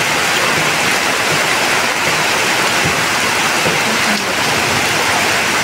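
A steady, even rush of water: heavy rain falling and floodwater flowing fast down a street.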